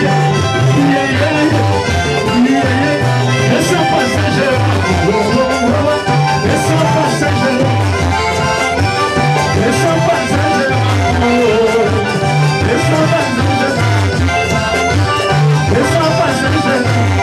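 Live Congolese gospel band playing: guitars over a repeating bass line and drums, with a man singing.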